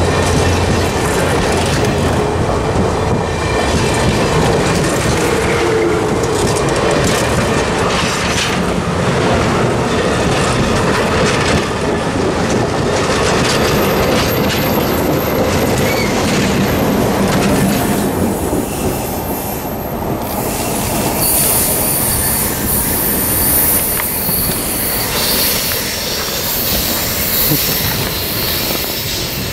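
Passenger coaches of a train rolling past close by: a steady rumble of steel wheels on rail with clicking over the rail joints. A high-pitched wheel squeal joins about halfway through and grows stronger in the last third.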